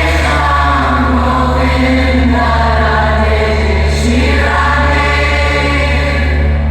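Music played loud through a large PA sound system on a sound check: sung vocals held on long notes over a steady, heavy deep bass.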